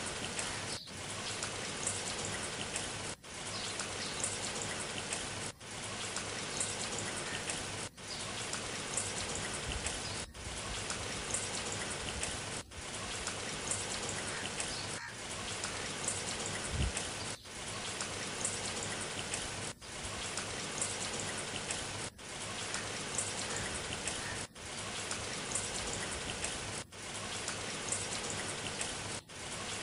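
Rain sound effect: a steady hiss of falling rain, played on a short loop that briefly drops out and restarts about every two and a half seconds.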